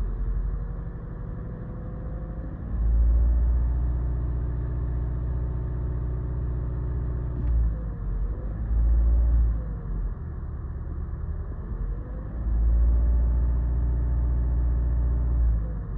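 Mazda 3 four-cylinder engine heard from inside the car, pulling under throttle and easing off: its pitch rises about two and a half seconds in, drops near the middle, climbs briefly, then rises again and drops near the end, over a steady low rumble. The engine has a misfire on cylinder 2 that sets the check-engine light flashing under throttle.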